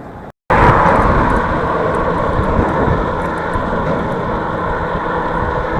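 Wind and road noise from riding a bicycle fast, a steady loud rush on the action camera's microphone. It cuts in after a brief dropout about half a second in and eases slightly.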